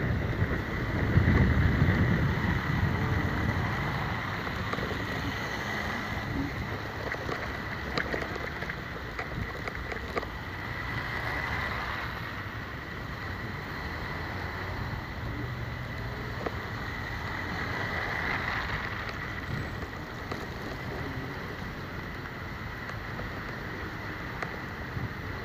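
Driving noise heard from inside a vehicle's cab in slow city traffic: steady engine and tyre rumble, louder for the first couple of seconds, with a thin high-pitched whine running under it.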